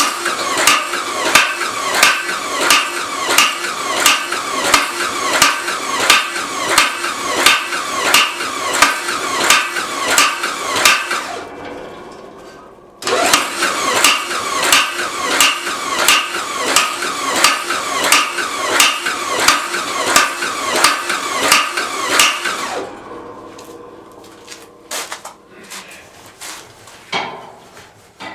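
Homemade power hammer, driven by an electric drill through a worm gear, pounding hot metal with regular clanging blows about two a second. It winds down and stops about twelve seconds in, starts again a second later, and runs until about twenty-three seconds in, followed by a few scattered knocks.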